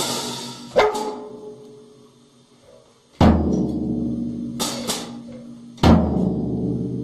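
A drum struck about four times at uneven intervals, the heavier hits booming low and ringing on, with a quiet gap between the first and second hits.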